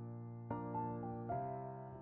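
Background music on a piano-like keyboard: slow, held chords, with new notes struck about half a second and about a second and a quarter in.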